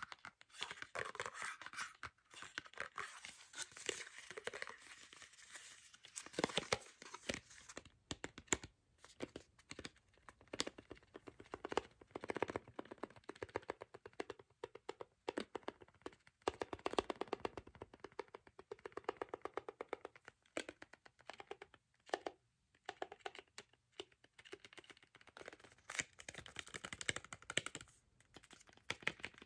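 Fingernails tapping and scratching on a cardboard NYX mascara box and its plastic mascara tube, close up: rapid, uneven runs of light taps with brief pauses.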